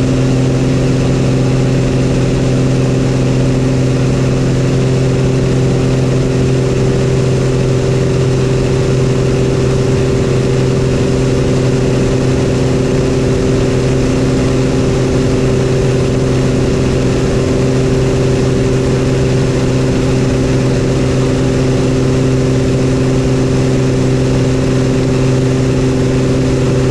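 Cessna 182's piston engine and propeller at climb power just after takeoff, a loud steady drone heard from inside the cockpit. The pitch holds even throughout as the plane climbs and turns.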